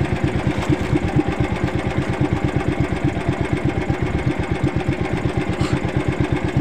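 Small engine of an outrigger fishing boat running steadily, with an even, rapid pulsing beat.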